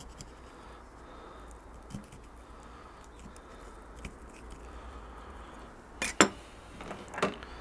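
Quiet knife work on a wooden cutting board: a kitchen knife cutting small pockets into a raw pork neck, with a few faint ticks. About six seconds in comes a sharp clack of the knife against the board, then a lighter knock a second later.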